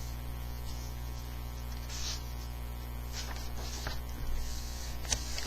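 Steady electrical mains hum, with a few faint rustles and a sharp click near the end.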